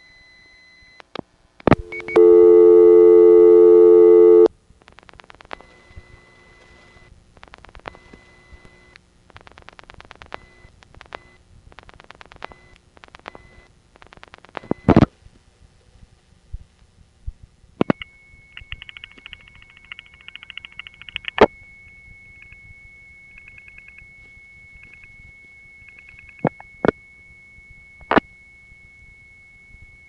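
Telephone line sounds of a call being switched through to a sub-exchange, recorded in 1970: a loud buzzy tone for about two seconds, then several runs of rapid switching clicks. From about the middle on, a steady high tone holds with a few sharp clicks, until the intercept recording answers.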